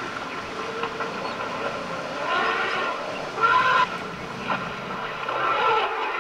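African elephant herd stampeding out of a waterhole in panic, several elephants trumpeting in alarm, with the loudest blast about three and a half seconds in. Underneath runs the steady noise of the herd running through mud and dust.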